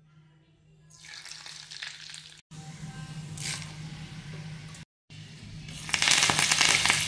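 Hot oil sizzling in a small tempering pan as mustard seeds and urad dal fry in it, with two brief gaps. It gets loudest near the end when curry leaves go into the oil.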